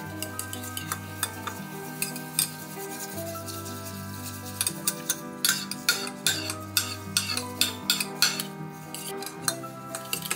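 A metal spoon stirring chia seeds and milk in ceramic mugs, clinking and scraping against the sides; the clinks come quicker and louder from about halfway through. Soft background music with sustained notes underneath.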